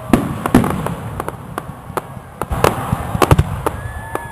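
Fireworks going off: a rapid, irregular series of sharp bangs and crackles, with a few deeper booms among them.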